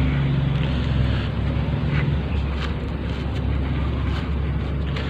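Steady low engine-like rumble throughout, with a few faint light clicks scattered through it.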